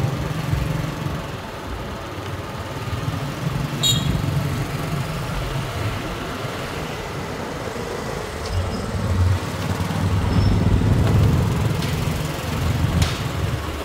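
Street traffic with motor engines running, one getting louder about ten seconds in as it comes close, and a short click about four seconds in.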